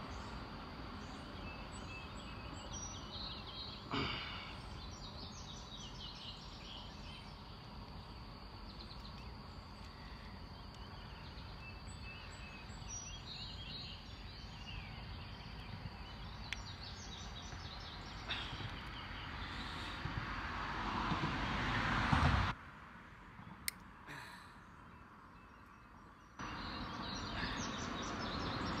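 Steady outdoor background noise with small birds chirping now and then, and a single click about four seconds in. Later the noise swells louder for a few seconds, cuts off abruptly to a quieter hush, then returns.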